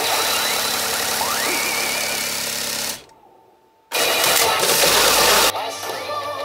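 P北斗の拳9闘神 pachinko machine playing loud, dense effect sounds with rising tones. The sound cuts out almost completely for about a second, then returns in a loud burst of effects before the machine's music resumes.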